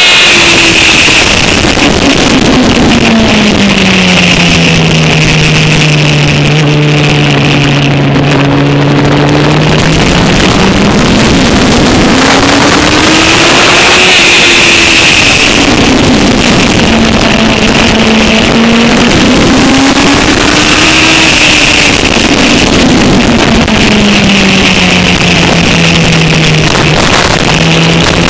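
Suzuki GSX-R1000 engine lapping a circuit, heard over heavy wind rush on the microphone: the revs fall as the bike slows, hold low for several seconds, then rise and fall a few times before dropping again near the end.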